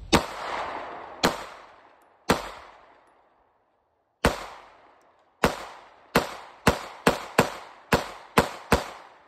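SIG Sauer P365X 9mm pistol firing twelve shots, each followed by a fading echo. The first three come about a second apart; after a pause of about two seconds, nine more follow at a quickening pace as the magazine is emptied in a mag dump.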